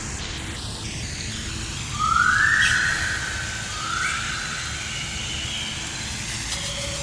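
Jungle ambience: a steady hiss of background noise, over which a bird calls twice, about two seconds in and again about four seconds in, each call rising in pitch and then holding.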